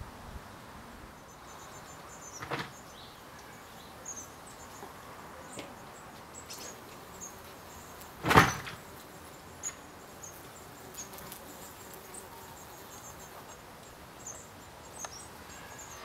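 Quiet outdoor ambience with a steady low hiss, faint high chirps coming and going, and a few short knocks. The loudest knock is sharp and comes about eight seconds in.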